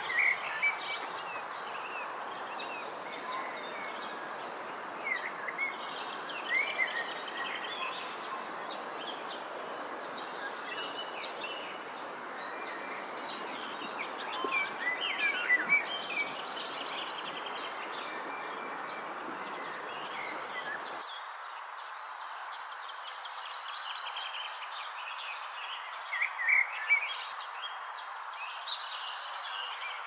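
Nature ambience: a steady insect trill with scattered short bird chirps coming in small clusters over a soft background hiss. The low part of the hiss drops away about two-thirds of the way through.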